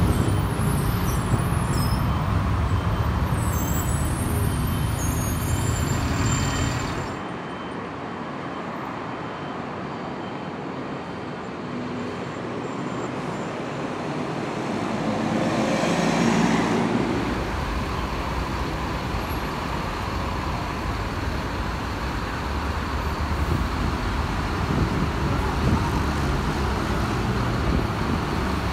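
City buses and road traffic running at a bus terminal. A heavy engine rumble stops abruptly about seven seconds in, another vehicle swells past about sixteen seconds in, and a steady traffic noise carries on after.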